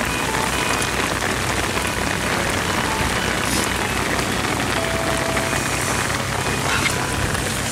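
Steady rain falling on a wet concrete breakwater, an even hiss with no break.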